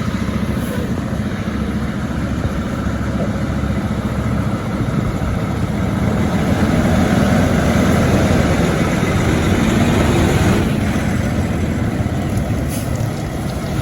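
A motor vehicle's engine running steadily with a low rumble, getting a little louder about halfway through.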